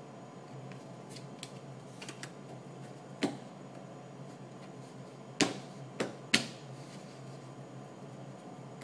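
Playing cards handled on a tabletop, face-down piles gathered up and squared in the hands. A few faint clicks, then a single sharp tap, then three sharper taps in quick succession past the middle.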